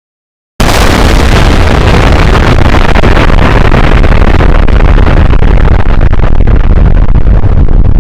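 About half a second of silence, then a sudden, very loud, distorted noise, heaviest in the bass, that runs on steadily without letting up.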